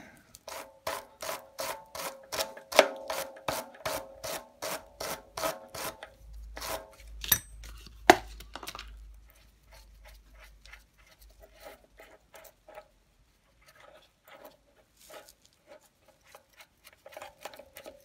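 Hand wire brush scrubbing the dirty threads of a bicycle rear-wheel axle in quick back-and-forth strokes, about three a second for some six seconds. A sharp metal click follows a couple of seconds later, then faint scattered ticks as the nut on the axle is turned by hand.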